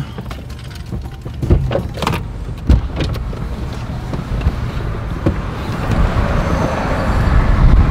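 Clicks and knocks inside a car as someone gets ready to climb out, the sharpest about three seconds in. Then the car door opens, and a rushing of outside air and traffic builds and grows louder, with a heavy low rumble near the end.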